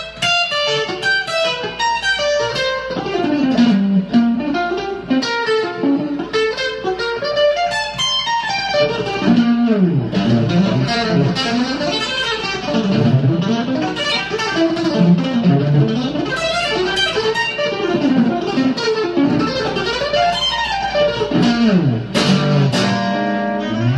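Stratocaster-style electric guitar playing fast sweep-picked arpeggios across the whole fretboard, the notes running rapidly up and down the neck again and again.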